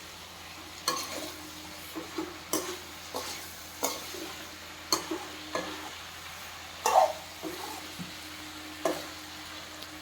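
A metal spoon stirring mixed vegetable sabzi in a pan, knocking and scraping against the pan about a dozen times at an uneven pace over a low sizzle. The loudest knock comes about seven seconds in.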